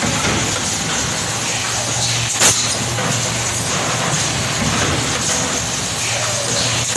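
Two-cavity PET stretch blow molding machine running, with a steady low hum and hiss and one short sharp burst about two and a half seconds in.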